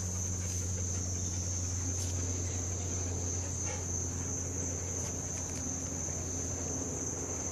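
Insects trilling in a continuous, steady, high-pitched drone, with a steady low hum underneath and a few faint clicks.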